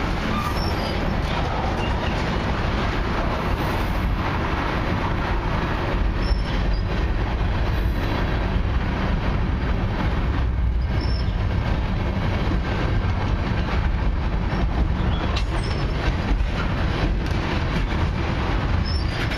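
Freight cars of a long mixed freight train (tank cars, covered hoppers and lumber-loaded flatcars) rolling past: a steady rumble of steel wheels on the rails.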